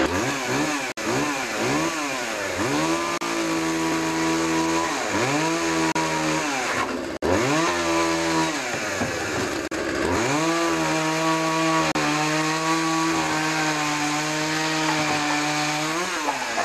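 Small Poulan two-stroke chainsaw cutting through the ends of thick fir table-top planks. It revs up several times in quick bursts, then settles into long stretches at a lower, steady pitch as the chain bites into the wood, revving up again between cuts.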